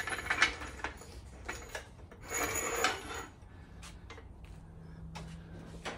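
Clinks, knocks and clatter of metal tools and parts being handled, with a short, louder scraping burst about two and a half seconds in. A faint low hum starts about four seconds in.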